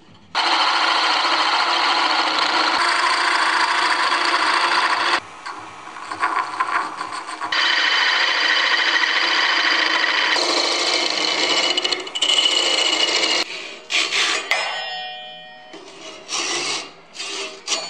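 Maple spindle being turned on a wood lathe: the hand tool cutting into the spinning wood gives a loud, steady hiss in two long passes with a short pause between. Near the end come shorter rasping strokes of a hand saw cutting through the piece, with a brief ring.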